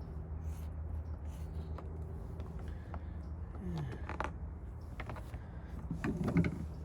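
Scissors snipping and clicking as they cut a plastic floor liner, over a steady low hum, with a brief voice-like sound about six seconds in.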